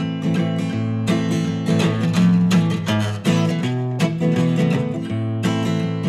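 Acoustic guitar strummed in a steady rhythm, ringing chords in an instrumental passage without singing.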